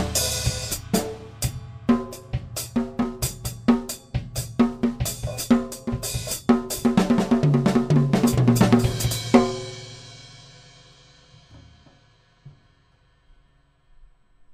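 Mapex Saturn Walnut/Birch drum kit with Zildjian Z3 cymbals played in fills and patterns across snare, toms, bass drum, hi-hat and cymbals. It ends on one last loud hit about nine and a half seconds in, and the cymbals ring out and fade away over the next few seconds.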